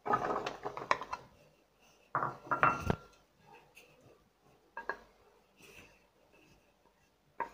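Chunks of raw plantain tipped from a bowl into a stainless steel pot with a wooden spatula, clattering against the metal in two bursts in the first three seconds, the second with a brief ring of the steel. A few faint knocks follow as a plate is tilted over the pot.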